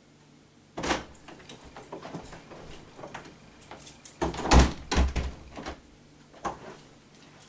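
A door being opened and shut: a sharp clack about a second in, scattered knocks, then a cluster of heavy thumps, the loudest about four and a half to five seconds in, and a last click near the end.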